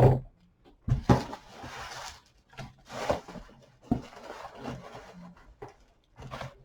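Packaging being handled: bubble wrap and plastic rustling in bursts, with a few light knocks of boxes being set down or bumped.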